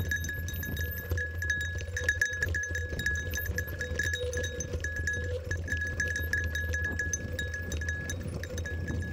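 Mountain bike rolling along a dirt trail, heard from the handlebars: a low rumble with small rattles and clicks, and a high metallic ringing that pulses unevenly.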